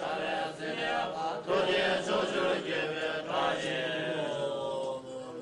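Buddhist monks chanting a prayer in a sing-song recitation, ending on a long held note that slides slightly down and fades.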